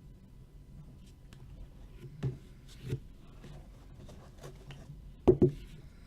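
Trading cards being handled on a table: faint rubbing and a few light taps, with two sharper knocks close together near the end.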